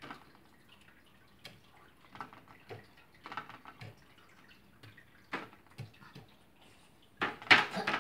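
Scattered soft taps and clicks of a paintbrush dabbing paint onto paper and tapping in a foil paint tray, with one louder one near the end.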